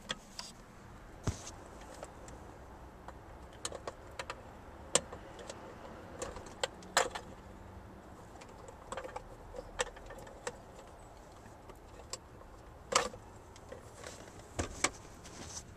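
Scattered sharp clicks, knocks and plastic rattles at uneven intervals as the wiring connectors are unplugged from a Toyota Tacoma's overhead console and the loose console is handled.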